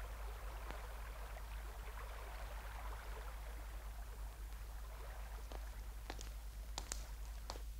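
Faint trickle of water in a shallow stone-lined stream channel, over a low steady hum, with a few sharp clicks in the last two seconds.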